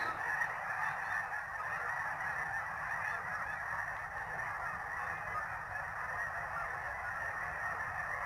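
A large flock of snow geese calling as they fly in to land: a dense, continuous chorus of honking with no break.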